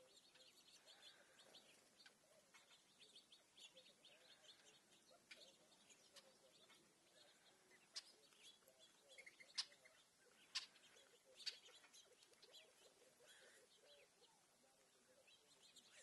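Faint, frequent chirps of small birds, with four sharp clicks a little past halfway.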